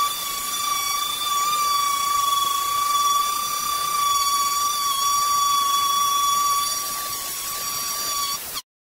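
Electric angle grinder running against the steel door panel of a classic Mini, grinding the paint off around dents down to bare metal before body filler. A steady high whine over a rasping hiss, cutting off abruptly near the end.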